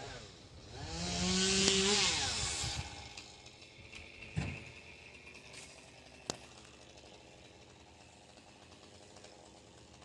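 A chainsaw running at full throttle for about two seconds, starting about a second in, its pitch sweeping as it fades. A single thump follows a little later.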